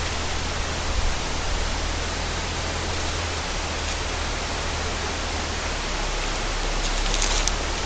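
Steady, even hiss with a low rumble beneath it, and a few faint clicks near the end.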